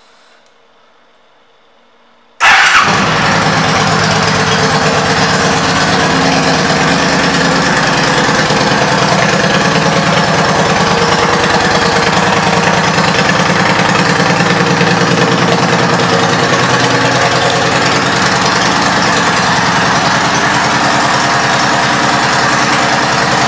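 A 2009 Yamaha V Star 1300 Tourer's V-twin engine, fitted with Cobra Long Shot exhaust pipes, is started about two and a half seconds in. It catches at once and settles into a steady idle.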